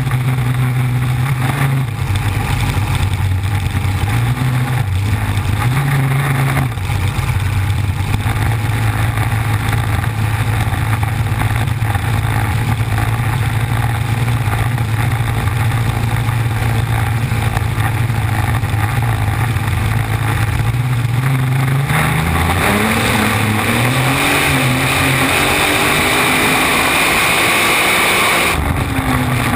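Flat-bottom V-drive race boat's engine running at high speed, heard close to its stern exhaust pipes, with a steady rush of water and wind. About 22 seconds in, the engine note drops and then swings up and back down while the hiss of spray grows louder.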